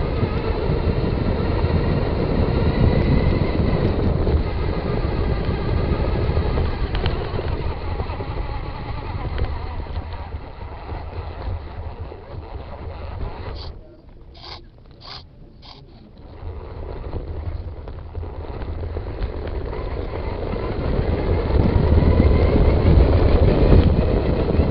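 Traxxas Stampede RC truck running, its electric motor whining up and down over a rushing noise of wind and rolling. About halfway through it dies down for a couple of seconds, with a few sharp clicks, then builds up again as the truck speeds off.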